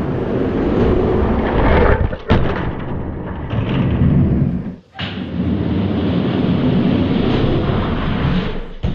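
Two Hot Wheels die-cast monster trucks rolling down a racing track with a steady rumble. There is a sharp clack a little over two seconds in. The sound drops out briefly near the middle, then the rumble resumes.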